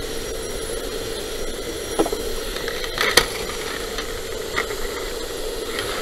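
Steady rushing noise with a constant droning hum inside a burning building, the mixed sound of the structure fire and the firefighting equipment, broken by sharp cracks or knocks about two, three and four and a half seconds in.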